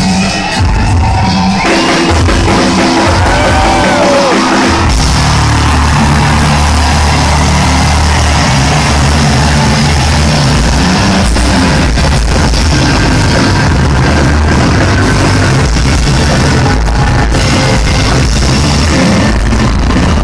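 Live rock band playing loud, heard through an overloaded, distorted audience recording. Squealing guitar notes slide up and down in pitch at first, then the full band with heavy drums and bass comes in about five seconds in.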